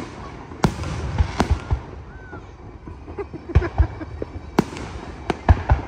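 Aerial fireworks display: shells bursting overhead in a string of about ten sharp bangs at irregular intervals, bunching closer together near the end, over low rumble and echo.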